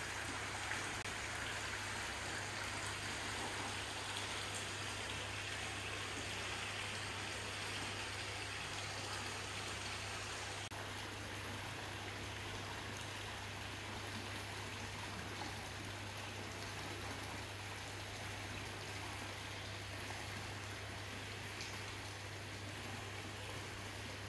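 Hot-spring water pouring from a wooden spout into a tiled bath, a steady splashing and trickling.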